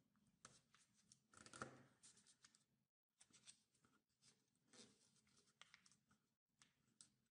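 Faint rustling and crackling of origami paper as fingers fold it and press the creases flat, a run of short crinkles with the loudest about one and a half seconds in. The sound cuts out briefly twice.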